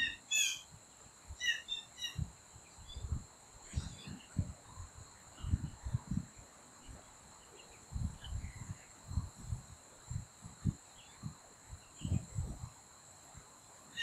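Outdoor nature ambience: a steady high insect trill runs throughout while small birds give short chirps, mostly in a cluster near the start. Irregular low thumps and rumbles come and go and are the loudest thing heard.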